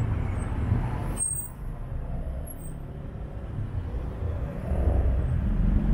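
City street traffic: cars driving past close by with a low engine and tyre rumble, growing louder toward the end as a car passes close.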